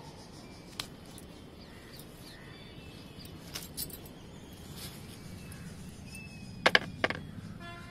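Small green eggplants dropped into a plastic tray, landing with two sharp knocks in quick succession near the end. Faint bird chirps can be heard in the background.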